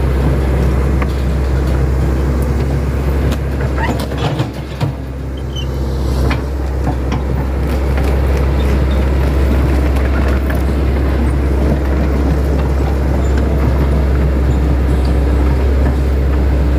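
Engine running steadily at a constant low hum, with a few sharp clicks and a brief dip in level about four to six seconds in.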